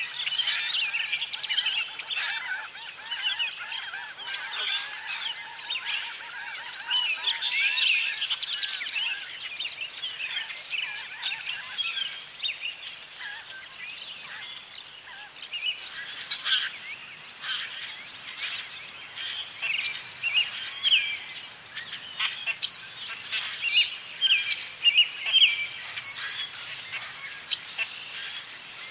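Spring evening bird chorus of common grackles, red-winged blackbirds, American robins and swallows: many birds chirping and calling over one another. In the second half there are crisper bursts of short repeated notes.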